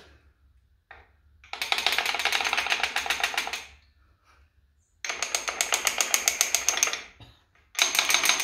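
Power impact tool hammering in three bursts of about two seconds each, with rapid, even blows at roughly ten a second.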